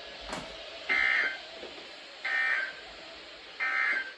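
Emergency Alert System end-of-message data tones from a NOAA Weather Radio broadcast: three short, identical bursts of warbling digital tones about 1.3 seconds apart, over a steady hiss of radio static. They mark the end of the severe thunderstorm watch message.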